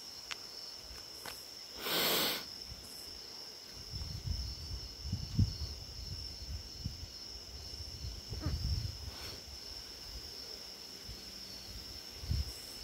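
Night insects trilling steadily in a high, evenly pulsing tone. A short burst of hiss comes about two seconds in, and low rumbling bumps come and go through the middle and near the end.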